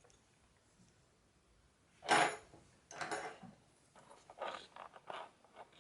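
Small repair tools and parts being handled on a work surface while an iPhone X is taken apart: a sharp scrape about two seconds in, another a second later, then a few softer clicks and rustles.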